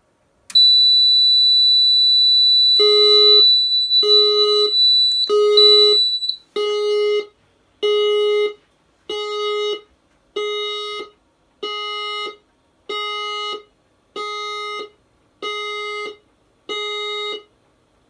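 Fire alarm system going into alarm as the beam smoke detector senses smoke. A steady high-pitched beep starts about half a second in, and from about three seconds the sounder plays a pulsed alert tone, about twelve evenly spaced pulses a little over a second apart; the steady beep stops about halfway through the pulses' first few seconds.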